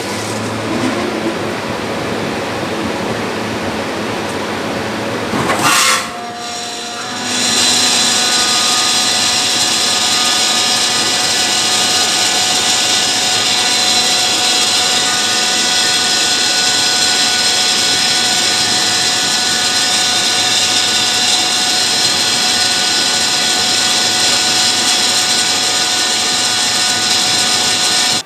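Trane RTAC 200 air-cooled chiller's screw compressor running with a loud, steady hiss and several steady tones. This is the abnormal compressor noise that was traced to a defective discharge service valve. A brief louder burst comes about six seconds in, then the sound drops and returns louder a second later, staying steady.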